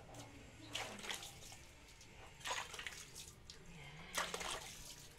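Water splashing in three short bursts as a small dog is washed by hand, wet fur being rubbed and soaked.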